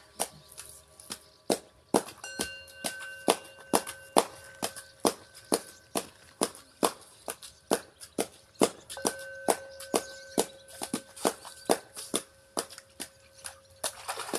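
Singing bowls ringing with long, steady tones, one struck about two seconds in and another around nine seconds, over a steady run of sharp clicks at about two or three a second.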